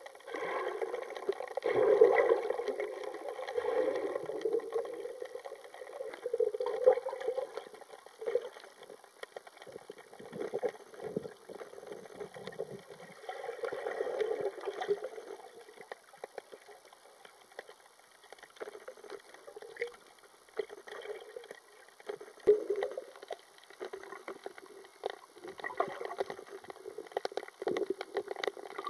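Muffled gurgling and sloshing of water heard by a camera held underwater, swelling and fading unevenly with a few small knocks.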